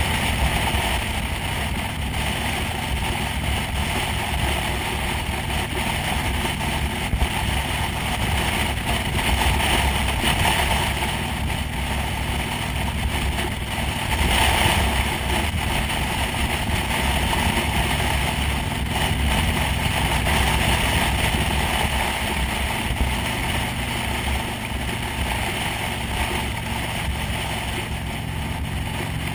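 Motorcycle cruising at a steady speed: the engine runs evenly under a constant rush of wind past the windshield and microphone.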